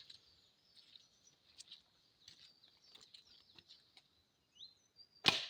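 Faint birdsong chirping, then a single sharp crack about five seconds in as a blunt field-tipped arrow is shot into a bicycle helmet and goes through it.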